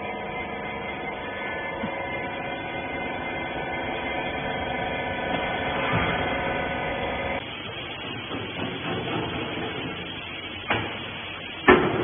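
Hydraulic rag baler's power unit running with a steady hum, which cuts off abruptly a little past halfway. After that comes an uneven clatter, with a knock and then a louder clunk near the end.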